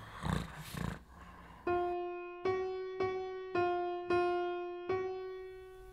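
Electric-piano-like keyboard playing a single note six times at an uneven pace, each strike ringing out and fading before the next, as a short music cue.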